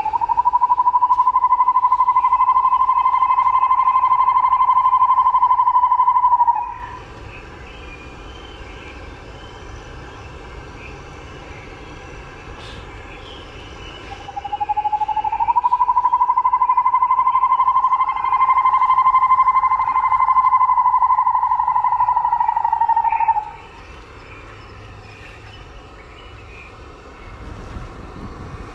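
Cicada droning twice, each a long, steady, buzzing tone of several seconds that glides up in pitch as it starts and cuts off abruptly.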